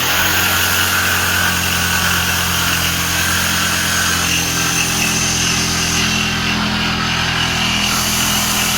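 Electric power saw running steadily as it cuts along a marked pencil line, its metal shoe pressed down on the workpiece.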